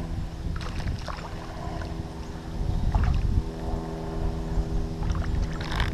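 Wind rumbling on the microphone over a steady low hum, with a few small clicks and rustles scattered through.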